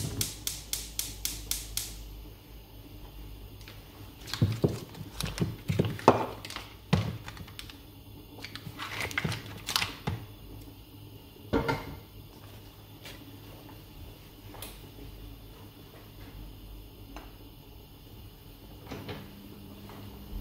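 Gas hob's spark igniter clicking rapidly, about five ticks a second, for the first two seconds as the burner is lit. Later come knocks and crinkling paper as a wrapped block of butter is handled on a plastic chopping board, the loudest knocks near the middle.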